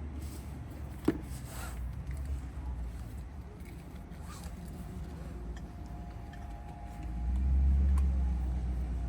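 Low, steady rumble inside a Toyota Corolla's cabin, swelling louder for a moment near the end, with a single sharp click about a second in.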